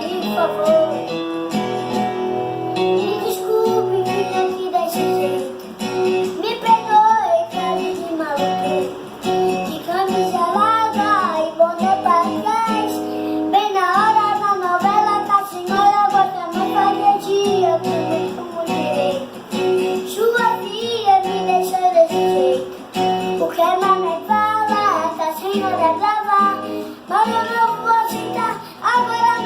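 A young child singing a sertanejo song in Portuguese over a backing track with plucked acoustic guitar.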